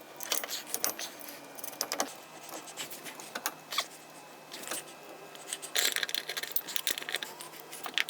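Irregular light metallic clicking and rattling of hand tools and hardware, with a quicker run of clicks about six seconds in.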